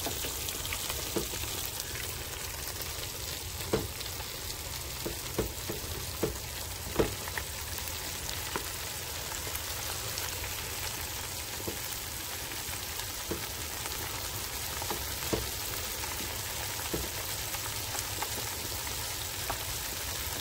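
Chicken wings frying in hot oil in a fryer: a steady sizzling hiss with scattered sharp clicks and pops, most of them in the first several seconds.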